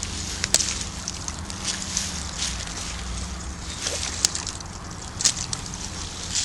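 Pond water sloshing as brooms are worked through the weeds, with a few sharp clicks over a steady low hum.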